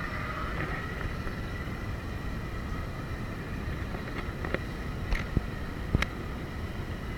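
Small boat's engine running under way, with wind buffeting the microphone. Several sharp knocks come in the second half.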